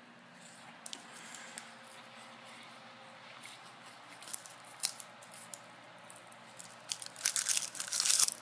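Roasted seaweed snack sheets being handled and eaten: scattered crisp crackles and crunches, with a dense run of louder crackling near the end.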